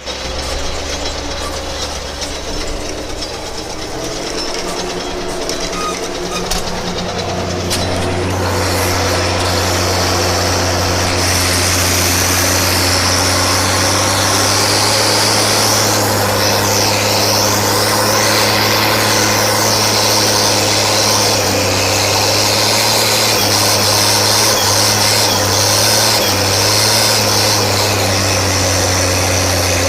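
Zetor ZTS 16245 tractor's six-cylinder diesel engine running steadily, picking up and getting louder about eight seconds in, then running on harder at a steady pitch.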